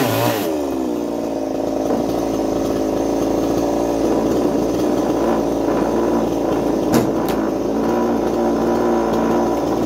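Small 45cc Chinese two-stroke chainsaw with a ported cylinder, its revs falling away in the first half second as a cut finishes, then running steadily at idle. Two sharp knocks about seven seconds in.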